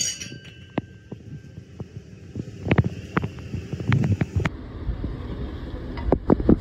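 Slotted spoon scraping and knocking against a stainless skillet as sliced kielbasa, peppers and onions are stirred, in scattered clicks and scrapes over a low steady hum.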